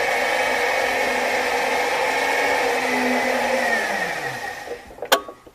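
A steady whirring, motor-like noise with a low hum that drops in pitch and fades as it winds down, followed by one sharp click near the end.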